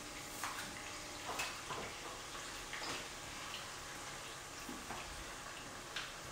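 Diced beef sizzling as it fries in hot oil with onions: a steady sizzle with a few light clicks of a utensil against the pan.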